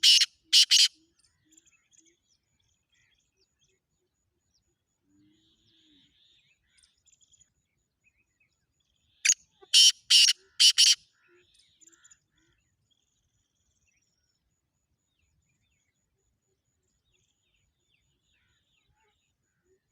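Black francolin calling: a loud, harsh phrase of four grating notes right at the start, repeated about nine seconds in, with only faint scattered sounds in between.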